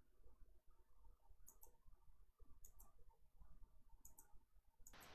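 Near silence broken by faint computer mouse clicks, three quick double clicks a second or so apart. A steady hiss comes up near the end.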